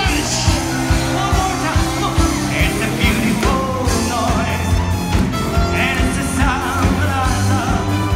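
Live band playing a number with a steady drum beat and held notes from the other instruments.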